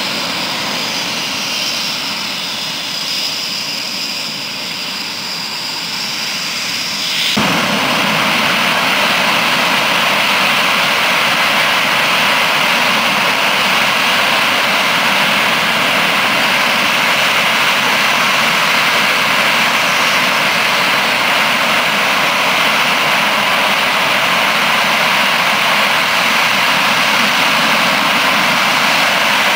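Panavia Tornado jets' RB199 turbofan engines running on the runway: a distant jet hiss with a steady high-pitched whine for the first seven seconds, then, after an abrupt jump in loudness, a loud, steady jet roar.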